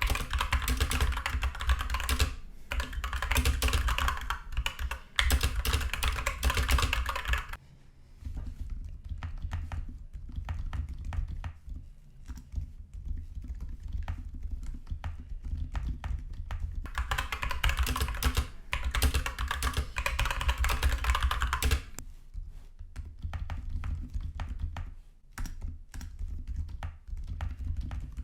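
Typing on a 60% mechanical keyboard fitted with lubed silent tactile switches, O-ringed keycaps and foam-dampened, band-aid-modded stabilizers: dense key clicks, with two stretches of fast typing, one at the start and one past the middle, and lighter tapping in between.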